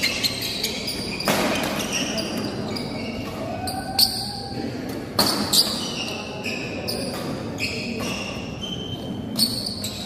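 Badminton doubles rally in a large hall: sharp cracks of rackets striking the shuttlecock, the loudest around the middle and one near the end, with short high squeaks of court shoes on the floor and spectator chatter behind.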